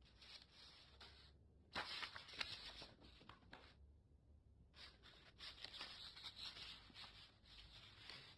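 Quiet rustling and crinkling of paper sheets being handled and shifted, with small taps, in two stretches: one starting about two seconds in, the other about five seconds in.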